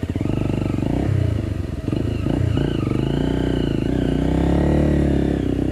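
Trail motorcycle engine running at low revs with a chugging beat, then revving up and easing off again between about two and five seconds in as it is ridden over rough ground.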